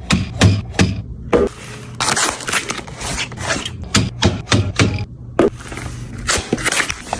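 Drinks being restocked into a fridge: a quick run of knocks and clicks as cans and bottles are set down and arranged, with a stretch of scraping and rustling about two seconds in.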